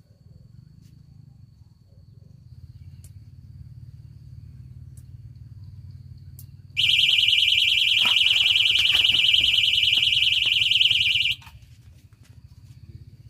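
Electronic fishing bite alarm going off: a loud, high-pitched, rapidly pulsing beep that starts suddenly about seven seconds in, runs for about four and a half seconds, then cuts off, signalling a fish taking line on one of the set rods.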